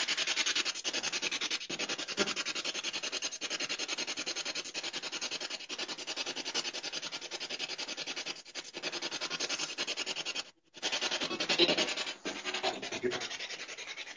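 Ghost box (spirit box) running: a steady hiss of radio static, finely chopped as the device sweeps rapidly through stations. It cuts out for a moment about ten and a half seconds in, then comes back rougher, with louder fragments near the end.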